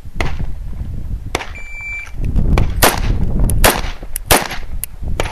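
A shot-timer beep, then a string of several 9mm pistol shots about half a second apart from a CZ pistol whose trigger reset had just been greatly lengthened.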